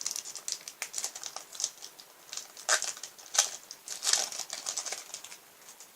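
Foil Pokémon XY Evolutions booster pack wrapper crinkling as it is opened: a run of sharp crackles with a few louder bursts in the middle, dying away near the end.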